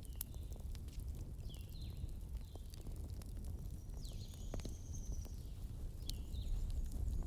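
A wood fire crackling, with sharp scattered pops over a steady low rumble. Several short, high, falling chirps come through as well.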